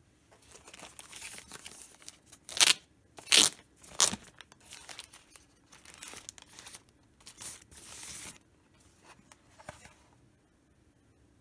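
Clear plastic packaging bag crinkling and tearing as a router is handled and pulled out of it, with three loud, sharp crackles between about two and a half and four seconds in. It dies away about ten seconds in.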